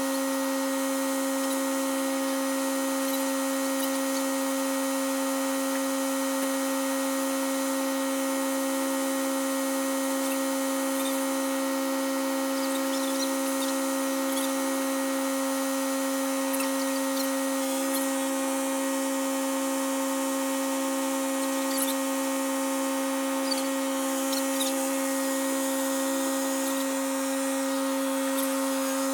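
Compact Kubota tractor engine running at a steady speed, a constant even hum, with a few faint clicks near the end.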